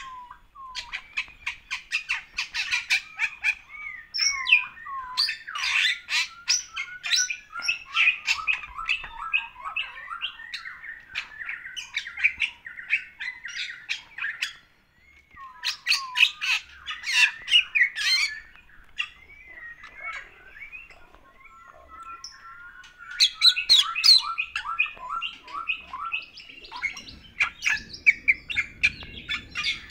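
Bali myna (Bali starling) in full song: a fast, varied stream of harsh squawks, sharp clicks and chattering, gliding whistles. The song breaks off for a moment about halfway, runs softer for a few seconds, then comes back strong.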